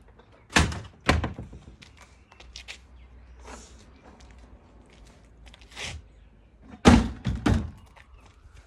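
A series of hollow thunks and knocks from an old plastic manual washing machine being handled and thrown out: two loud ones in the first second or so, lighter knocks and clicks, then two more loud thunks near the end.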